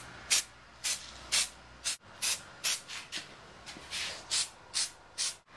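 Aerosol spray can sprayed in a rapid series of short spurts, roughly two a second, coating hair through a duct-tape stencil.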